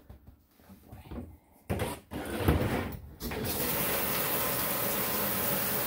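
A few knocks and handling noises, then about three seconds in a bathtub tap is turned on and water runs in a steady gush into the tub to start a dog's bath.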